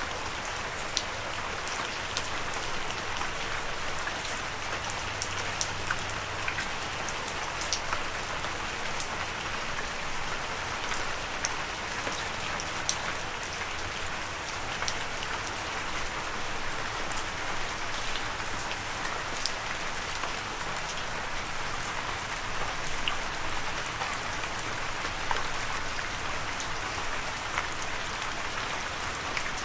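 Steady rain with a constant hiss and many individual drops ticking sharply on a hard surface.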